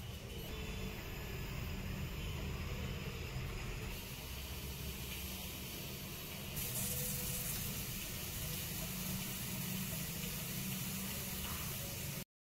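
Steady background noise, a low hum with a hiss over it, that shifts in level at each cut and stops dead into silence near the end.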